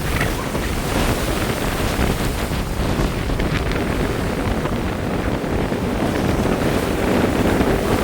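Surf washing onto a beach, mixed with wind buffeting the microphone, a steady rushing that swells slightly near the end.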